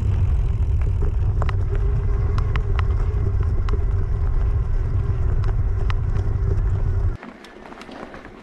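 Wind rushing over the camera microphone, with tyre rumble, while riding a mountain bike at speed. A faint steady hum and scattered small clicks run underneath, and the rush cuts off suddenly about seven seconds in.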